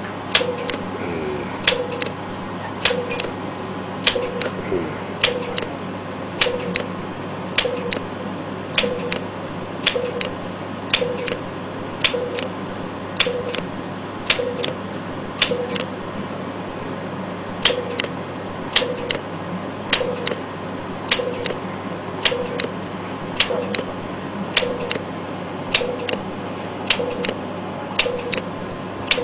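INTRAcel fractional radiofrequency microneedling handpiece firing shot after shot: a sharp click with a short beep about once a second as the needles are driven into the skin, over a steady electrical hum.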